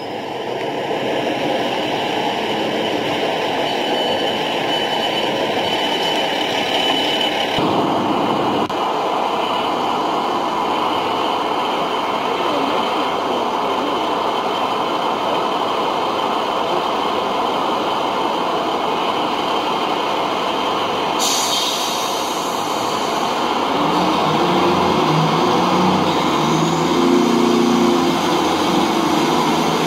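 Sound-fitted model of a Class 150 diesel multiple unit playing its recorded diesel engine sound, running steadily at idle, then pitching up and getting a little louder about three-quarters of the way in as the unit pulls away.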